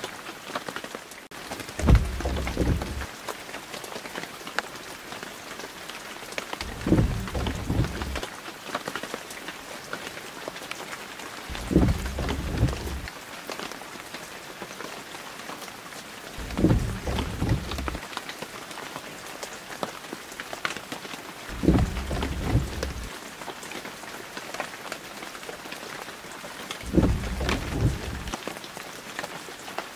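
Steady rain hiss. A low rumbling thud cuts through it about every five seconds, six times in all, each lasting about a second.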